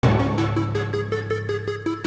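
Electronic intro music: a quick repeating synth melody of short notes over a held bass note.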